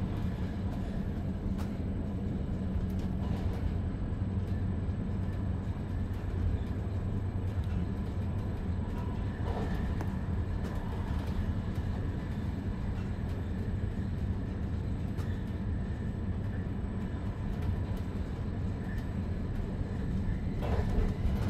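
Interior of a double-deck S-Bahn coach hauled by an Re 450 locomotive, running at steady speed: a steady low rumble of wheels on rails with a faint steady hum, and a few faint clicks.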